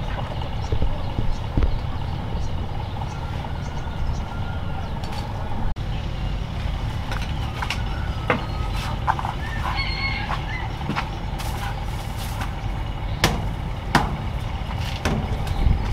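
Duck eggs clicking and knocking as they are handled into a plastic crate, a handful of sharp knocks scattered through, over a steady low rumble. Poultry call now and then.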